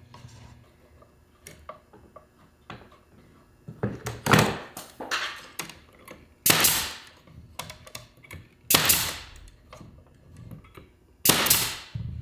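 Pneumatic air nailer firing four times, roughly two seconds apart, driving nails into small cedar beams, with lighter clicks and taps of handling in between.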